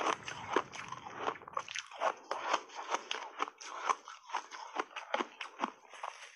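Close-miked crunching and chewing of refrozen ice chunks coated in matcha powder: a rapid, irregular run of sharp crunches, several a second.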